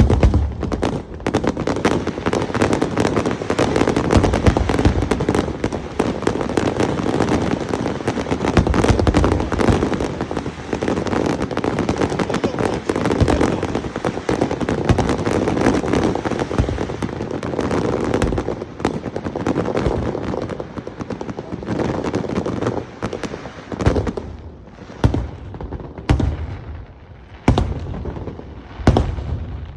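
Aerial fireworks display: a dense barrage of bursting shells and crackling. After about 24 s it thins out into separate loud booms, roughly a second or two apart.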